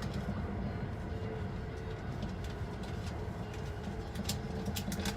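Sunrise Izumo sleeper train running, a steady low rumble of wheels and carriage heard inside the compartment, with a few sharp clicks about four to five seconds in.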